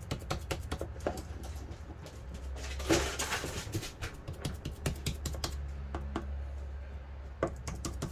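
Light, irregular clicks and taps of hands at kitchen work while meat cutlets are being shaped and packed, with a brief rustle about three seconds in, over a low steady hum.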